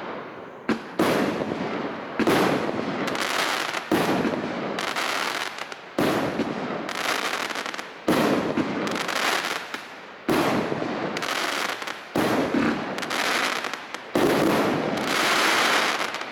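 A 36-shot 1-inch fireworks cake firing its shells in sequence, a sharp bang about once a second, each followed by a fading hiss and crackle of the aerial burst.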